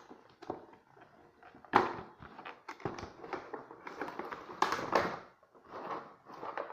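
Cardboard box and packaging of a pair of wireless headphones being handled and opened: irregular rustling with sharp clicks and taps, the loudest click about two seconds in.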